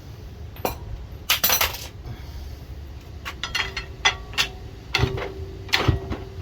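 Scattered light metallic clinks and taps of tools against the timing sprocket of a small-block Chevy 350, as the old timing gear is worked loose. A faint steady tone comes in about halfway through.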